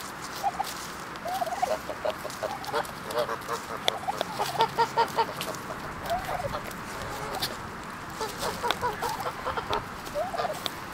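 White domestic turkeys clucking and calling while they forage, with a quick run of about six short calls a little after the middle.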